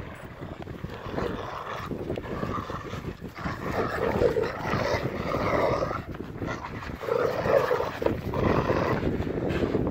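Two Rottweilers growling as they tug against each other on a rope in play, the growls swelling about four seconds in and again near the end.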